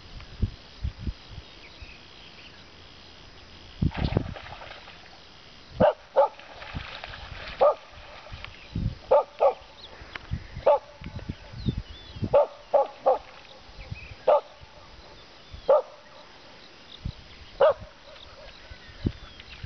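Dog barking: about a dozen short barks, starting about six seconds in, irregularly spaced and some in quick pairs. A short rush of noise comes about four seconds in.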